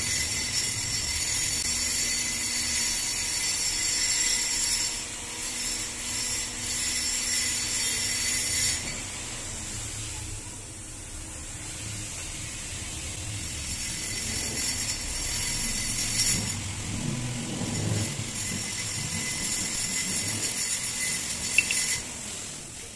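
Gas welding torch flame hissing steadily while aluminium is welded with a hand-fed filler rod. The hiss drops away for a few seconds in the middle, then comes back.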